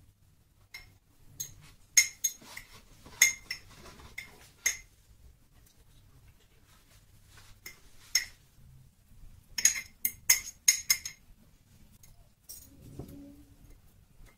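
Sharp, ringing clinks of kitchen dishware, in small clusters with pauses between them, as a glass jar is packed with roasted red peppers and garlic.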